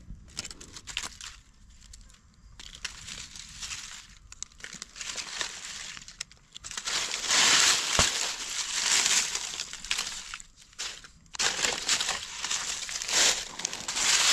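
Dry fallen leaves crunching and crinkling as gloved hands sweep and dig through the leaf litter. Faint scattered crackles at first, then much louder dense rustling from about seven seconds in, with a brief lull shortly before the end.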